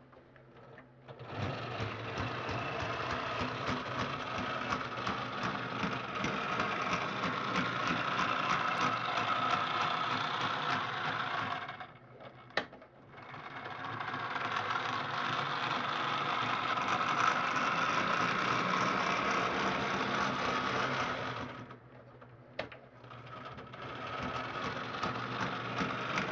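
Varney HO scale model diesel locomotive running, its motor and gears making a steady, busy whirr with the wheels clicking on the track. It runs in three long stretches, dropping away twice, with a sharp click in each pause.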